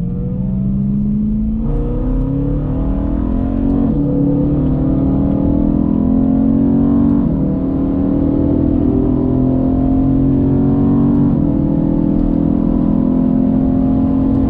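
BMW E92 M3's 4.0-litre V8 accelerating through the gears, heard from inside the cabin: the engine note climbs and drops at each of four upshifts, each gear pulling longer than the last.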